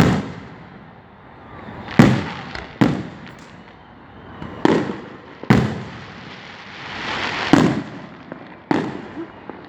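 Aerial fireworks shells bursting overhead: about seven sharp bangs at irregular intervals, each trailing off briefly, with a rising hiss before one of them.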